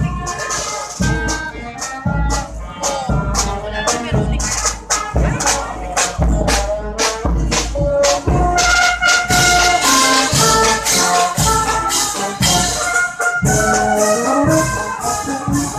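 Marching brass band playing in procession: clarinets, trumpets and sousaphones over a steady percussion beat with bass drum. The brass grows louder and fuller about halfway through.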